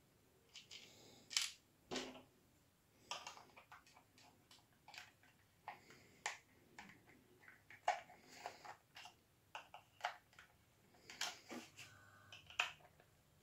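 Light, scattered clicks and taps of a Hornby OO gauge Eurostar model power car's plastic body being handled and fitted back together by hand.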